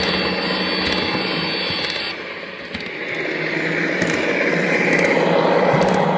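Lionel Union Pacific M-10000 O gauge model train running on track: a steady motor hum under rumbling wheel noise. A high whine drops out about two seconds in, and the sound grows louder toward the end.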